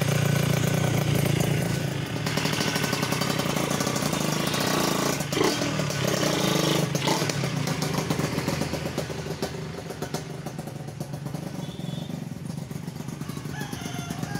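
Yamaha Touch 125 motorcycle engine, freshly rebuilt with a new connecting rod, running: steady at first, then ridden off and fading from about halfway through. The exhaust has only a light jingling ring (kemrincing), with no knocking from the engine.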